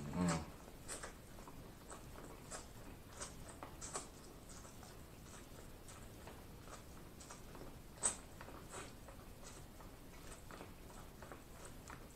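Corn on the cob being bitten and chewed: faint, irregular wet mouth clicks and smacks, with louder ones at the start and about eight seconds in.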